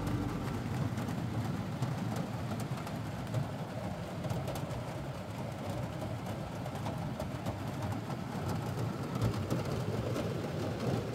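Steady road and tyre noise with a low engine rumble inside a vehicle's cab, driving on a wet road in the rain, with scattered light ticks.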